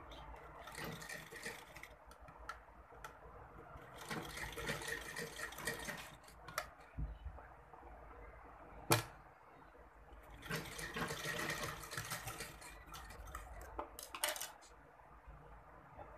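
Domestic sewing machine stitching in three short runs of a second or two each, with a few sharp clicks between them, the loudest about nine seconds in.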